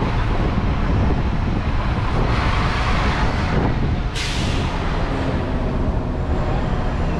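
Road traffic and a bus running, heard from the open top deck of a double-decker tour bus, with a low wind rumble on the microphone. About four seconds in comes a sudden short hiss of air brakes.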